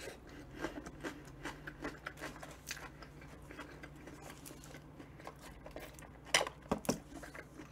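Close-up chewing of a soft sandwich: a scatter of small wet mouth clicks and squishes. A little past six seconds come a few louder, sharper clicks as she sips through a straw from a small milk carton.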